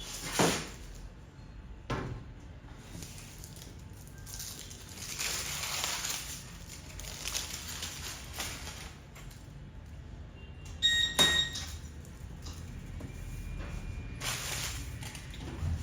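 Kitchen handling sounds while preparing cake batter. A knock near the start and a click about two seconds in, then stretches of scraping or rustling, and a loud clink with a brief ring, like metal or glass struck, about eleven seconds in.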